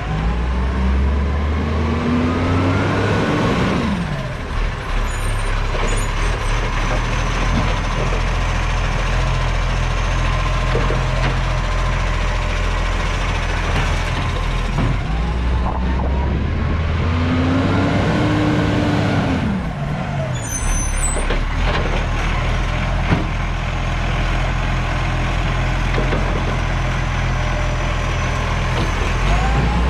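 Garbage truck's diesel engine running, revving up and winding down twice, with a short air hiss after each rev.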